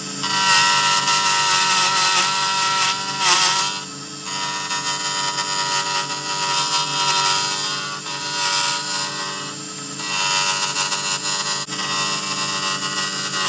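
A lathe runs with a steady motor whine while a turning tool cuts into a spinning epoxy resin pen blank; the cutting noise swells and eases as the tool works along the blank.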